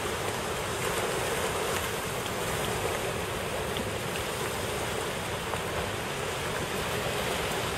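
Steady rushing of fast-moving floodwater.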